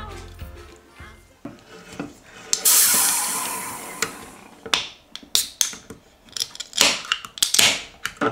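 Aluminium beer cans being opened by their pull tabs: a sudden fizzing hiss of escaping gas about two and a half seconds in that fades over a second or so, then a run of sharp tab clicks and short hisses as more cans are cracked open.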